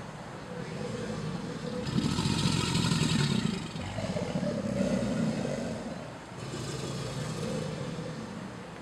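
American alligators bellowing: deep rumbling roars that swell and fade one after another, the loudest about two seconds in.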